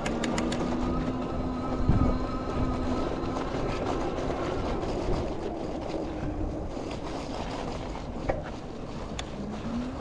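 Aventon Aventure fat-tire e-bike riding through fresh snow: the motor's steady whine under pedal assist over the rushing noise of the fat tyres rolling on snow. The whine fades about halfway and rises in pitch again near the end. A few sharp clicks come right at the start.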